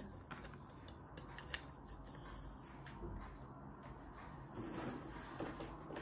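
Faint scattered clicks and rustles of bark pieces being pushed into a clear plastic orchid pot among the roots.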